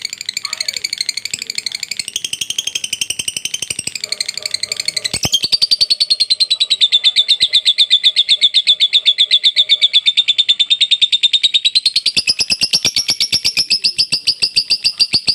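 Lovebird giving a long ngekek: one unbroken, very fast chattering trill of high, evenly repeated notes. It grows louder about five seconds in and rises in pitch near the end.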